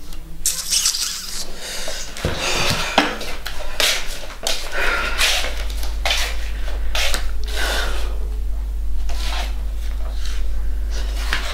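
A woman's breathy, irregular sighs and exhalations, in upset, with little voiced sound, over a steady low electrical hum.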